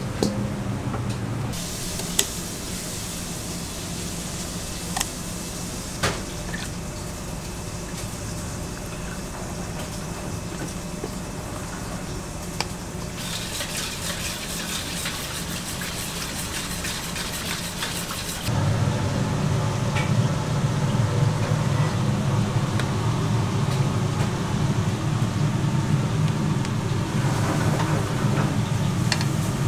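Kitchen work sounds in turn. First the clatter of pumpkin chunks tipped from a steel bowl into a steel pot, then a steady hiss with a few clicks. Next comes a whisk beating quickly around a steel mixing bowl, and from about two-thirds of the way through, food sizzling in a frying pan over a loud, steady low hum from the kitchen ventilation.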